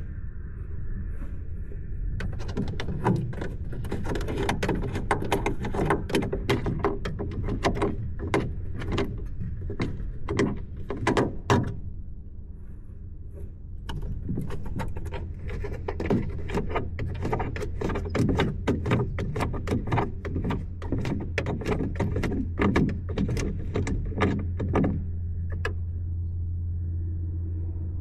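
RC airplane heard from its onboard camera: a steady low hum with many irregular rattling clicks and knocks, which ease off briefly about halfway through.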